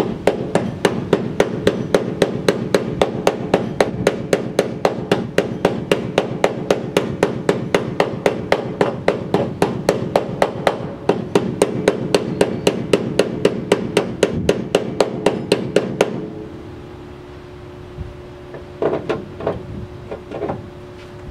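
Welding on the sheet steel of a Rambler American's engine bay: a rapid, regular crackle of about three to four pops a second, which stops about 16 seconds in. A few scattered knocks follow near the end.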